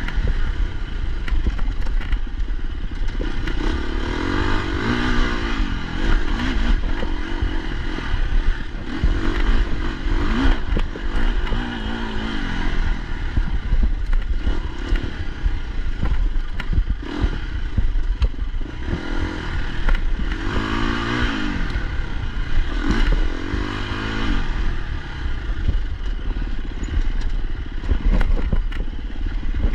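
Enduro dirt bike engine ridden hard on a trail, revving up and falling back over and over as the rider works the throttle. Frequent clattering knocks from the bike bouncing over rough ground come with it.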